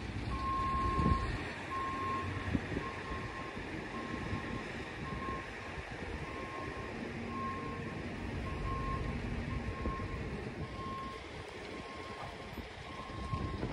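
A vehicle's reversing alarm beeping steadily, about once a second, over a continuous low rumble.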